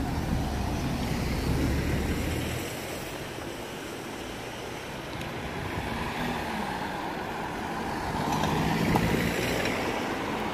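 Road traffic through a junction: a van and cars driving past close by, engine and tyre noise swelling as each passes. Loudest at the start, quieter in the middle, and building again near the end as another car goes by.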